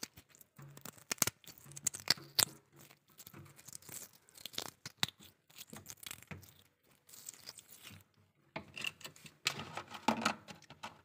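Freezer frost crunching and crackling as chunks of it are broken and handled, in irregular clusters of sharp snaps with a denser run near the end.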